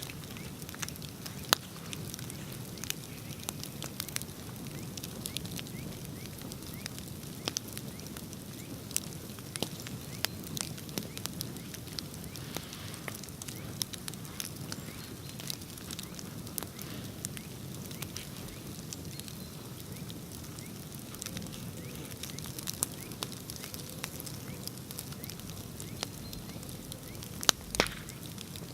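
Bonfire crackling: scattered sharp pops and snaps over a steady low rumble, with a quick cluster of louder pops near the end.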